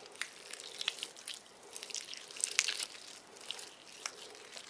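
Soft, sticky purple glitter putty being squeezed and kneaded by hand, making irregular small wet clicks and crackles, the sharpest about two and a half seconds in.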